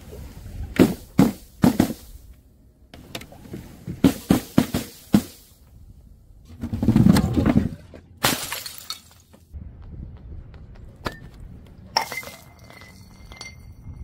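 A run of sharp smacks and splats as balloons and bottles dropped from a height burst on a hard tiled surface, spraying their paint and liquid. There are three hits about a second in, a quick cluster around four to five seconds, and one longer, heavier splash near the middle.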